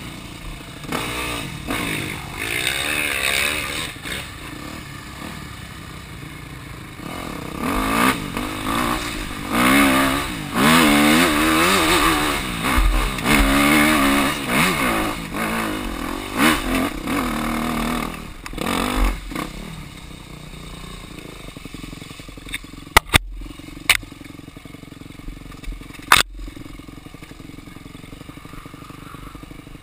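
Dirt bike engine revving up and down as it is ridden along a woods trail, loudest in the first two-thirds. It then drops to a quieter, lower running, with a few sharp knocks near the end.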